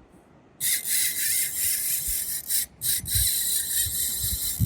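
Fishing reel's drag screaming as a big shark pulls line off against it: a loud, high buzz that starts about half a second in and runs in long stretches, broken twice by short gaps.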